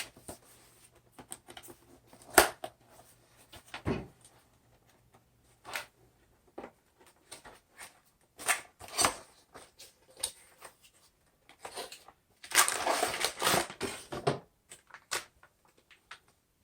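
A cardboard box of 3D printer filament being opened and handled: scattered knocks and clicks, then about two seconds of rustling packaging near the end.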